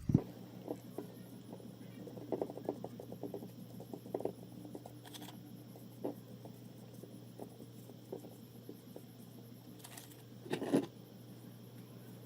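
Scattered light clicks and taps, as of tools and small metal parts being handled on a workbench, with a few sharper knocks, over a steady low hum.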